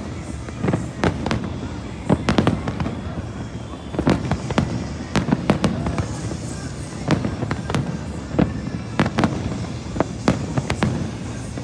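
Aerial fireworks going off: a rapid, irregular string of sharp bangs and cracks, several a second, over a continuous low rumble of further bursts.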